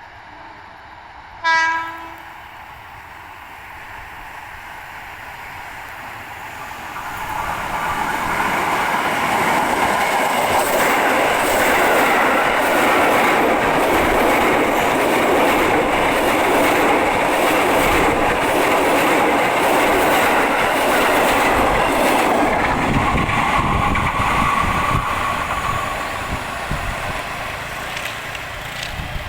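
KRL Commuter Line electric train giving a short horn blast about a second and a half in, then passing close by: a loud rumble with wheels clattering over rail joints for about fifteen seconds, then fading away.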